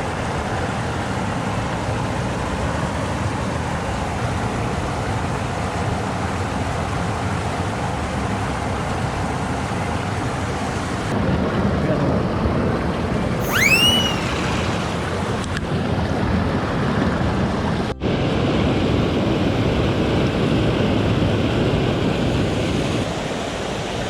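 Steady rushing of a swollen mountain stream running high after rain. About halfway through, a single short whistle rises sharply in pitch.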